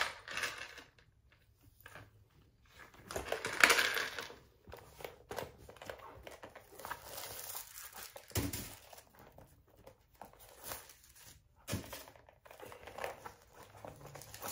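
Packing stuffing rustling and crinkling as it is pulled out of a new handbag, with the bag's flap, strap and metal hardware handled in between. Irregular rustles, loudest about three and a half seconds in, with a few light knocks.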